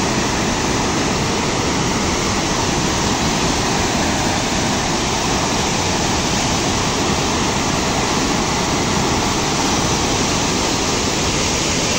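Nakhu River in flood: a torrent of muddy floodwater rushing past, loud and steady.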